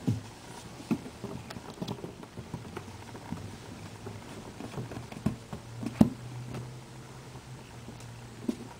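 Domestic cat chirping while watching prey through a window: a scatter of short, sharp chirps, the loudest about six seconds in, over a low steady hum.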